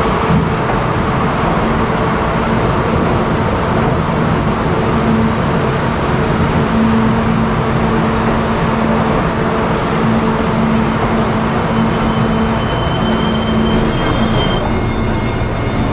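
Kintetsu 20000 series 'Raku' train moving along an underground station platform: a steady rumble of wheels with a low hum, and a faint high whine near the end.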